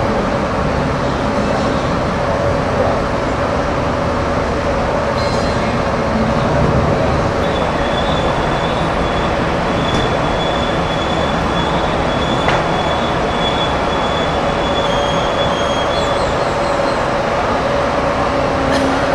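Panama Canal electric towing locomotive (a "mule") running along its lock-side track, a steady rail rumble with a thin high wheel squeal held for several seconds in the middle.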